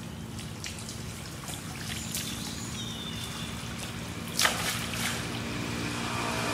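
Light splashing and trickling water as crab-eating macaques swim through floodwater, over a steady low hum, with one sudden louder splash-like noise about four seconds in.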